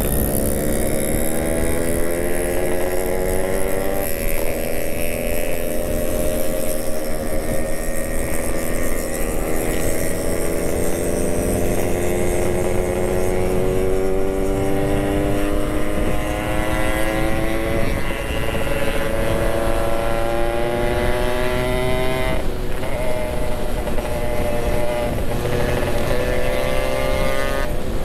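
Yamaha RX-King's two-stroke single-cylinder engine running under way, its pitch climbing slowly as the bike gathers speed, with a sharp drop in pitch about 22 seconds in before it climbs again. Wind rumbles on the microphone underneath.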